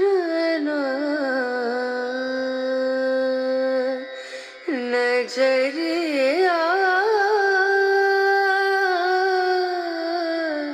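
A Hindi song: a solo singing voice holding long, ornamented notes that waver and bend in pitch, with a brief dip about four seconds in.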